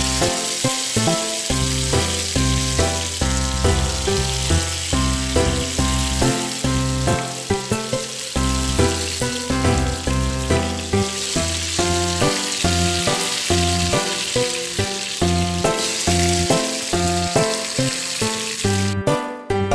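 Chicken pieces frying in hot oil in a pan, a steady sizzle that cuts off near the end, heard with background music.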